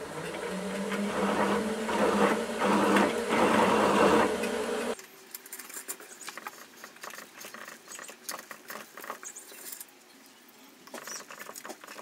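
Milling machine spindle running while a cutter bores a hole into a steel hammer head, a steady hum with cutting noise that stops suddenly about five seconds in. Then faint ticks and scrapes of a hand tap threading the hole.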